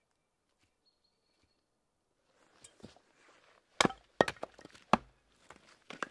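Hatchet splitting firewood on a chopping block: about four sharp chopping strikes in the second half, after a couple of near-silent seconds.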